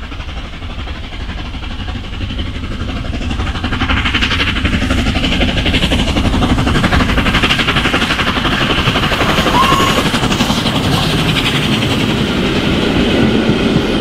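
Hornby Flying Scotsman OO gauge model locomotive running on its track: a small electric motor whirring and wheels rattling over the rails. The sound grows louder over the first few seconds as the engine approaches and passes close by.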